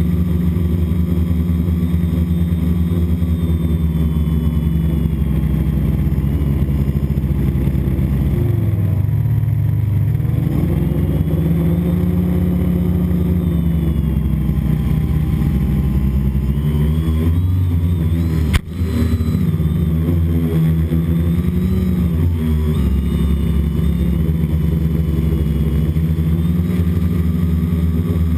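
FPV drone's electric motors and propellers heard from its onboard camera: a loud, steady buzzing whine whose pitch rises and falls as the throttle changes. A single sharp click cuts in about two-thirds of the way through.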